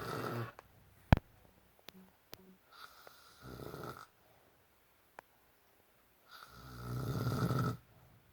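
A man snoring. One snore tails off at the start, a quieter one comes about three seconds in, and a longer, louder one comes near the end. A single sharp click about a second in is the loudest sound.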